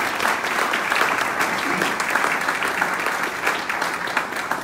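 Audience applauding: a steady spread of many hands clapping.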